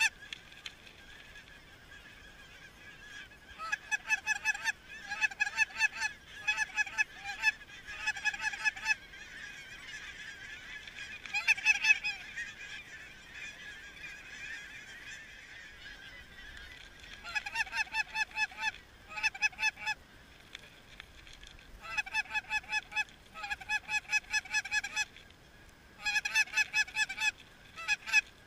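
Goose honking in quick rhythmic runs of short clucking notes, several notes a second, each run lasting about a second or two with short pauses between runs.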